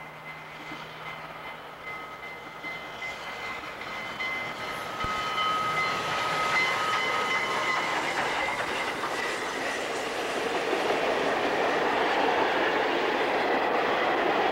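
Southern Pacific 4449, a GS-4 4-8-4 steam locomotive, approaching and running past, growing steadily louder, with a few faint steady high tones in the first half. Its passenger cars then roll by with wheel noise and clickety-clack over the rail joints, heard through a worn VHS soundtrack.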